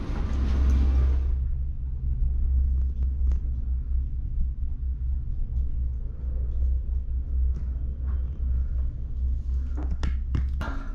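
Steady low rumble inside an enclosed gondola cable car cabin as it rides along the cable, with a few faint clicks and a short cluster of knocks near the end.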